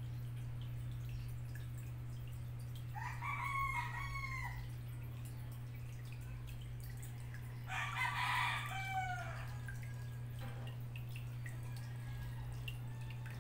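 A rooster crows twice in the background, about three seconds in and again about eight seconds in. Under it there is a steady low hum and faint dripping and bubbling from the aquarium's air-driven filters.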